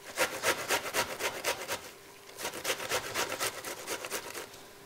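Zucchini being grated on a metal box grater: quick rasping strokes, about five a second, with a short pause about two seconds in before the grating resumes.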